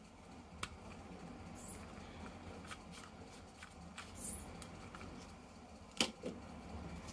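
Faint handling noise from plastic action-figure toys and their packaging: scattered light clicks and rustles, the sharpest one about six seconds in.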